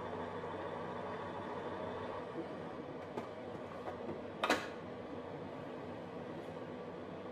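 Steady low drone of a truck cab's interior while driving, with a sharp click about four and a half seconds in.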